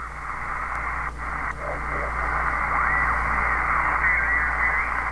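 Receiver audio from a Uniden Grant XL CB radio converted to the 20-meter ham band, tuned across the band: a steady hiss of band noise with faint, garbled sideband voices and whistles that slide in pitch as the dial turns.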